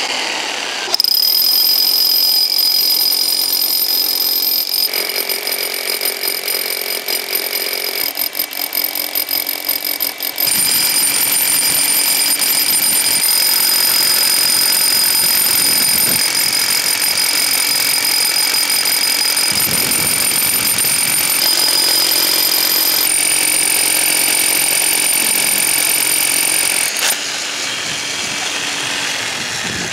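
Rotary hammer drill boring through a concrete foundation wall with a large auger bit: a loud, steady hammering run with a high motor whine. It eases off near the end.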